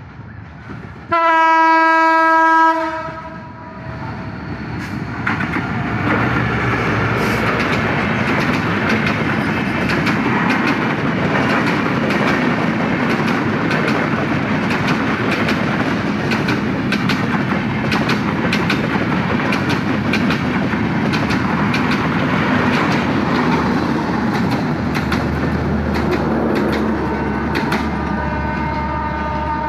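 Diesel locomotive's horn sounds one long blast about a second in. Then a passenger express train passes at speed: a rising rumble of the coaches with rapid clicks of the wheels over the rail joints. A steady droning tone comes in near the end as the last cars go by.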